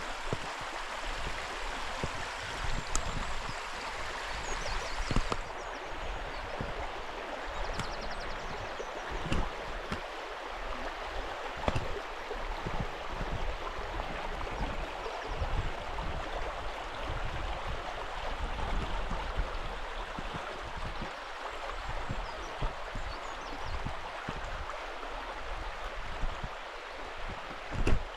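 A burn (small stream) running over stones, a steady rush of water throughout, with frequent irregular low thumps underneath.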